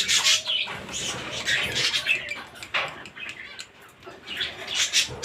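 Cage birds chattering and calling in short, irregular bursts.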